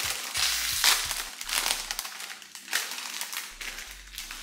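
Plastic snack bag of Quest protein chips crinkling as it is handled and opened, a dense run of crackles strongest in the first second and a half and thinning toward the end.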